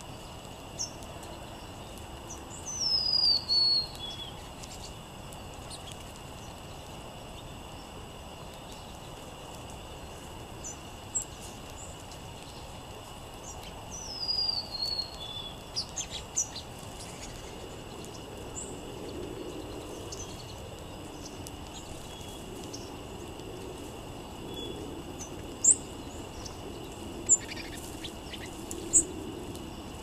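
Songbirds calling: a clear whistled song phrase that falls in pitch, heard twice, the second time about 14 seconds in, with scattered short high chips, three sharp ones near the end. A faint steady high tone sits behind them.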